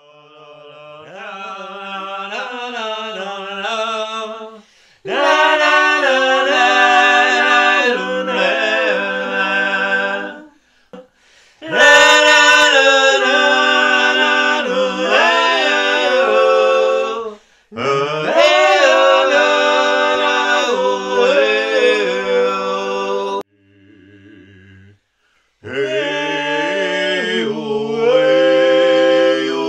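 Two men and a woman singing a cappella in harmony, in several phrases with short breaks between them; the first phrase starts softly and swells before the full, louder phrases.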